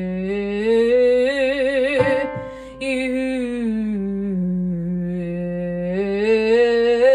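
A woman singing a held vowel in a register-blending slide: her voice glides down in pitch, then back up to a note with vibrato. There is a quick breath about two seconds in, and then the slide down and back up is repeated.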